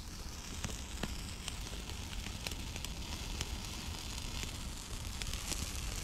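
Campfire crackling: a steady hiss with frequent sharp pops over a low rumble.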